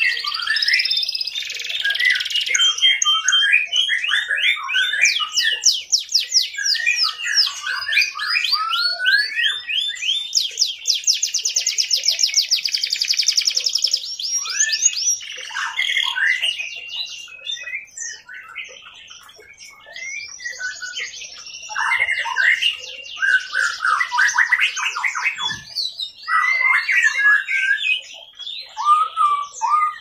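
Domestic canary singing a long, continuous song of fast rolling trills and chirps, with a quieter stretch about two-thirds of the way through.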